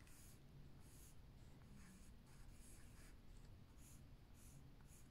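Faint scratching of a black drawing stick on paper, in a run of short strokes coming about two a second as lines are sketched.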